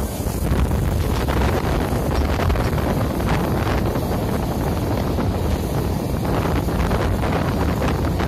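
Wind buffeting the microphone at the open door of a moving passenger train, over the steady rumble of the coaches running on the track.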